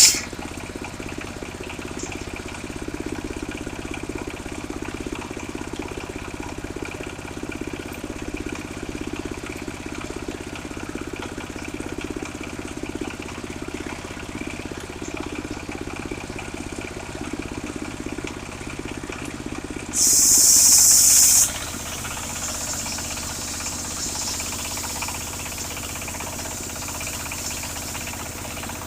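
Engine of a portable circular sawmill running steadily. About twenty seconds in, a loud high hiss comes in for about a second and a half and cuts off suddenly.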